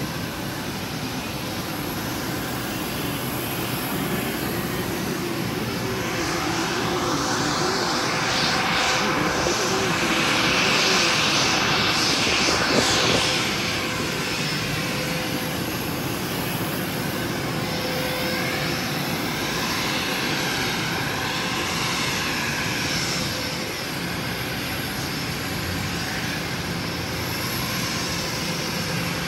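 Aircraft engine running: a steady rushing whine that grows louder about a quarter of the way in and eases off a few seconds later.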